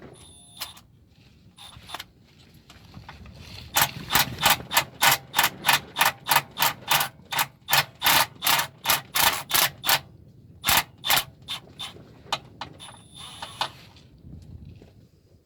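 3/8-inch hand ratchet with a 10 mm socket clicking as it loosens the oil pan bolts on a Subaru EJ25 engine. It makes a steady run of about three or four clicks a second for several seconds, then a few scattered clicks near the end.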